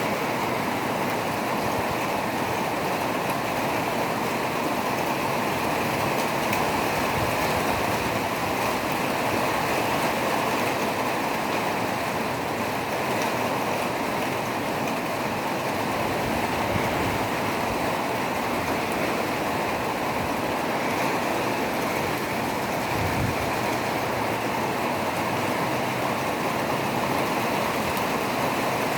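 Rain falling steadily, an even rushing hiss with no breaks or changes.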